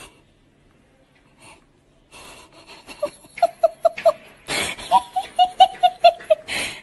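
A person laughing in two runs of quick, high-pitched bursts, about five a second, with loud gasping breaths between and after them.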